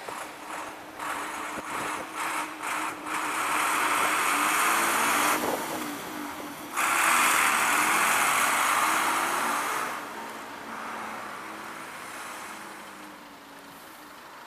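Fire engine driving past: engine and road noise that swells, drops briefly, comes back suddenly louder about seven seconds in, then fades away.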